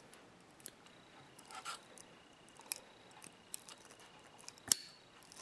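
Faint clicks and small scrapes from small KNIPEX bolt cutters' steel jaws and a cut, frayed end of stranded wire cable being handled, with a sharper click near the end.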